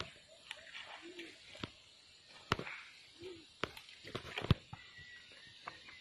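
Footsteps crunching over dry leaves and twigs on a forest path, with irregular sharp snaps and crackles, the loudest about four and a half seconds in. Faint animal calls sound behind, a low note repeating about every two seconds.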